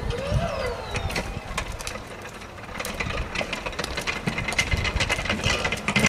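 Powered CargoMaster stairclimber carrying a fridge: its motor gives a short rising-then-falling whine near the start, amid a run of clicks and clunks from the machine and its load on concrete steps and paving.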